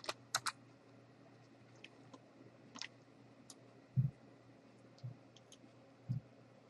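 Sparse, sharp computer mouse clicks over a faint steady hum, with three dull low thumps in the second half, the loudest about four seconds in.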